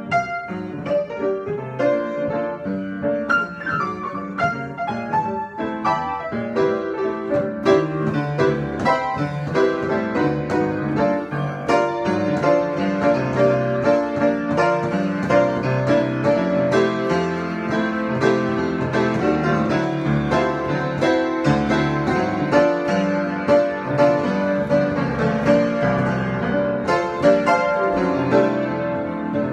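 Solo piano improvisation: a continuous flow of notes and chords played without a break.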